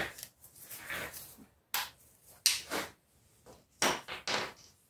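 Ratchet and 14 mm socket on an oil-pan drain plug: a handful of separate short clicks and knocks spread over a few seconds as the plug is worked loose.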